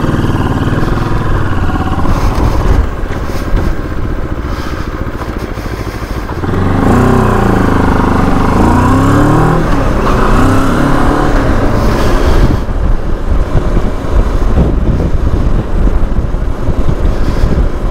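Motorcycle engine running while riding, over a steady low wind rumble; about six seconds in it gets louder and its pitch rises and falls as the rider accelerates and changes speed.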